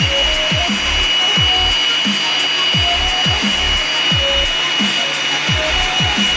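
Angle grinder running with a steady high whine, its attachment abrading wood. Background music with repeated falling bass sweeps plays underneath.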